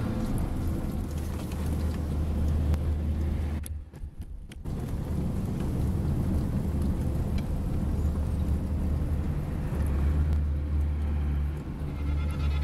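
Coach heard from inside its cab while driving: a steady low engine and road rumble. The sound briefly cuts out about four seconds in.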